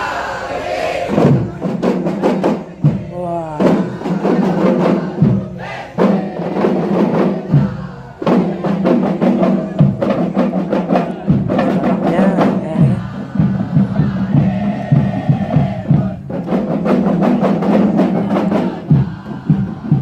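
Drums beaten in a fast, steady rhythm, with crowd voices in the background.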